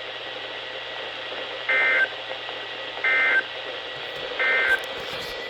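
Three short bursts of EAS SAME digital data, the end-of-message (NNNN) code that closes a NOAA Weather Radio required weekly test, each a buzzy warble about a third of a second long, a little over a second apart, over steady radio hiss.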